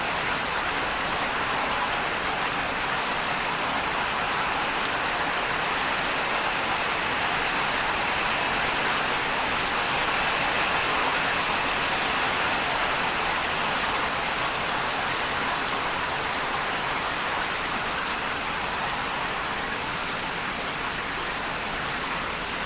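Steady rain falling, an even, continuous hiss of raindrops without thunder.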